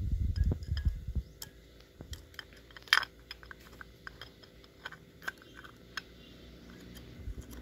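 Small metal carburetor parts being handled and fitted by hand onto an OKO 28 mm flatslide carburetor. A few low handling thumps in the first second are followed by scattered short clicks and taps, the sharpest about three seconds in.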